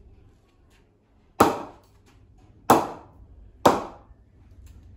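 A cricket ball bounced three times on the face of an SS 10 Supreme grade 2 English willow bat: three sharp, ringing knocks about a second apart. The bat's ping is excellent and the ball comes off the face well.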